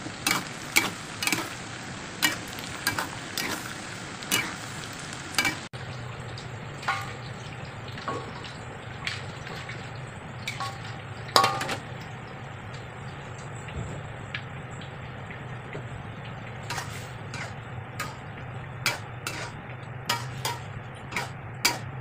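Metal spatula clinking and scraping against an aluminium wok while long beans are stir-fried, with frying sizzle underneath. The clinks come about twice a second at first. After an abrupt change a few seconds in, only occasional metal clinks sound over a steady low hum.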